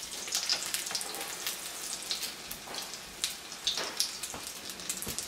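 Egg-battered potato cakes frying in hot oil in a pan: a steady sizzle with frequent sharp spattering pops.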